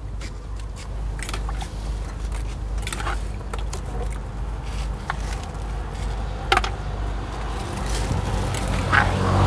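Steady low engine rumble with scattered sharp clicks and knocks over it, the loudest knock about six and a half seconds in.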